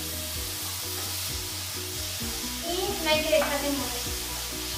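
Ground meat sizzling as it fries in hot oil in a stainless steel pan, stirred and scraped with a spatula. Background music plays underneath.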